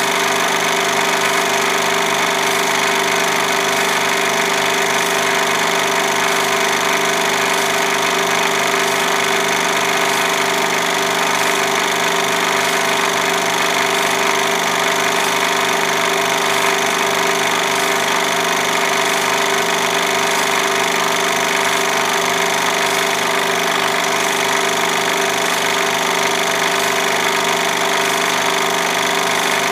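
Home-movie film projector running: its motor whirring steadily under a fast, even rattle from the film-advance mechanism.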